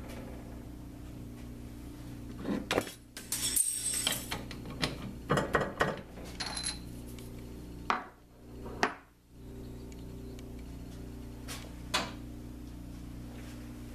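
Steady electrical machine hum, with bursts of metal clinking and clattering as tools and parts are handled, then a few single knocks.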